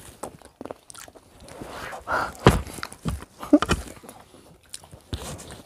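Two people eating loose grapes straight off their plates with their mouths: chewing and biting with scattered clicks and knocks against the plates, and a thump about halfway through. Brief voice sounds come through in the middle.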